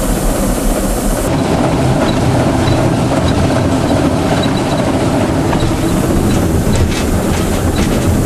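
TEM2 diesel shunting locomotive running along the track, its engine and wheels making steady noise. A few sharp clicks near the end are its wheels passing over rail joints.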